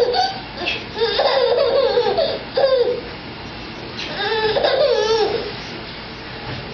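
Baby laughing in two long bouts, one about a second in and one about four seconds in, with short sharp bursts between them.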